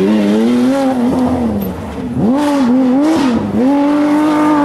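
A Porsche 911 rally car's flat-six engine at full effort. Its pitch sags as the driver lifts off, then rises sharply as it accelerates hard up through the gears, and it holds at high revs near the end.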